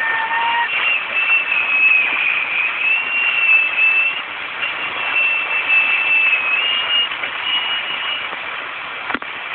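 CB radio receiver hiss with a high, wavering whistle that shifts in pitch every second or two. Right after, the operator puts the squeal down to a loop in the other station's audio. A sharp click sounds near the end.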